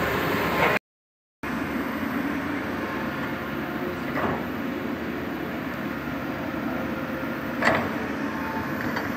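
Komatsu hydraulic excavator's diesel engine running steadily, with a couple of short sharp knocks. The sound cuts out for about half a second near the start.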